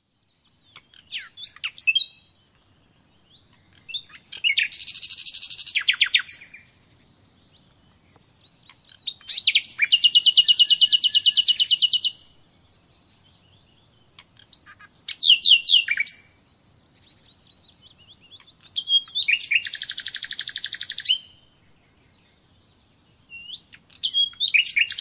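A songbird singing in repeated phrases: each begins with a few quick sweeping whistled notes and runs into a fast, even trill about two seconds long, with a new phrase about every five seconds.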